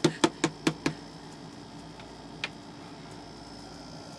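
Quick running footsteps, about five a second, stopping about a second in; then steady low background noise with one faint tick.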